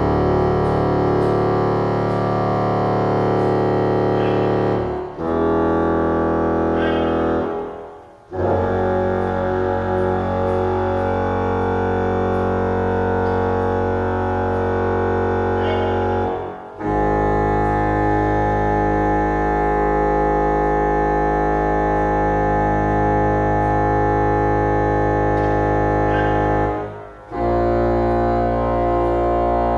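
Pipe organ's Bombarde reed stop sounding long held low notes and chords during tuning, several seconds each, with brief breaks about 5, 8, 17 and 27 seconds in. Some chords waver with a beat between the pipes.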